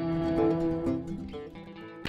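Background instrumental music.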